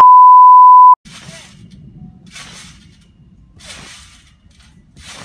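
A loud, steady beep tone lasting about a second. It cuts off, and a trampoline being bounced on follows: short, quieter swishes of the springs and mat about every second and a quarter, over a low rumble.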